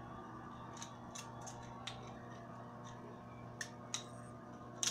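Scattered light clicks and taps, about seven of them, the loudest near the end, over a steady low hum.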